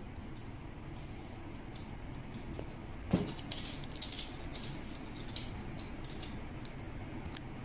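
Light, scattered clicking and jingling as dogs move about on a wooden floor: claws ticking on the boards and a metal collar tag jangling, with one louder short sound about three seconds in.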